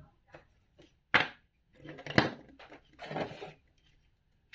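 Plastic building bricks being handled and snapped together: a few sharp clicks and knocks, the loudest about a second in and another about two seconds in, with a short rattle of pieces a little after three seconds.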